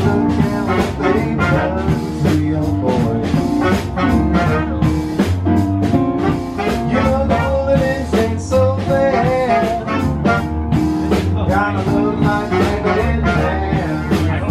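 Live traditional New Orleans-style jazz band playing, with saxophone, trumpet and trombone over a steady beat.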